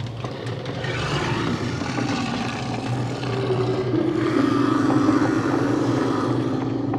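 Designed horror ambience: a steady low droning hum under a noisy swell, with a sustained tone that steps down in pitch about four seconds in and then holds.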